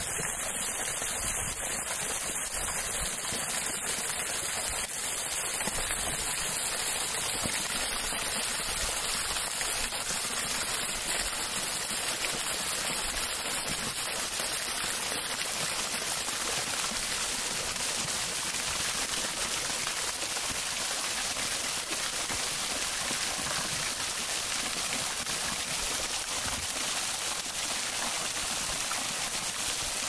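Small waterfall: water trickling and splashing down a moss-covered rock face, a steady hiss.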